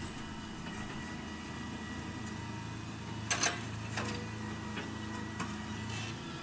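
Hitachi hydraulic excavator's diesel engine running steadily as the boom lifts and the arm swings out, with a few sharp knocks, the loudest a quick pair about three and a half seconds in.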